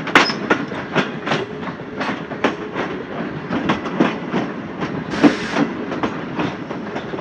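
Passenger coach wheels clacking over rail joints and points at low speed, with irregular knocks and a steady rumble, as the train runs through a junction yard. A brief hiss sounds about five seconds in.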